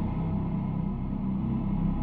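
Low, steady droning background music of the dark ambient kind, with a rumbling bass and no beat.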